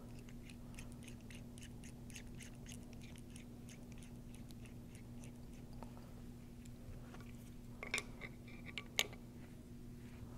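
Faint small clicks and ticks of steel pump piston parts being handled and screwed together by hand, with a couple of louder clicks about eight and nine seconds in. A steady low hum sits underneath.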